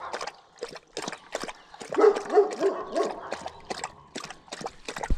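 Livestock guardian dog lapping water, a steady run of wet slurps about three or four a second. About two seconds in, a dog gives a brief wavering vocal sound over the lapping.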